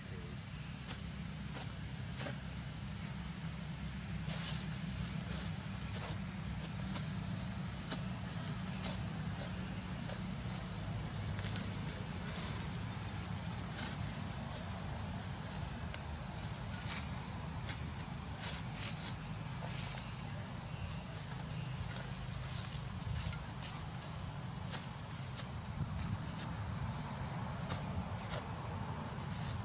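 Steady, high-pitched chorus of insects that shifts in pitch a few times. Faint scattered scrapes and knocks of a metal spade digging into dry, leaf-strewn soil sound under it.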